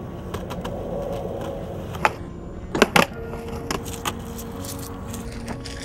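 Skateboard wheels rolling on a concrete sidewalk, with a sharp clack of the tail popping about two seconds in and a loud double clack of the board landing just before three seconds in. A steady hum runs underneath from about three seconds on.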